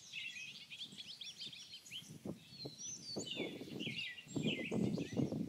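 Several small birds chirping and singing in quick, overlapping phrases, with a low rumbling noise that grows louder over the second half.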